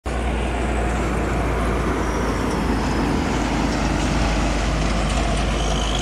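Road traffic: a heavy vehicle such as a truck running along the highway, engine and tyre noise at a steady level with a deep rumble underneath.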